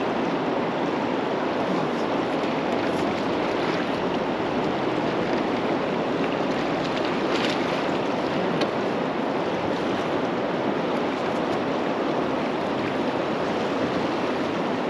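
Steady rushing of river water, an even hiss of current that holds at one level throughout.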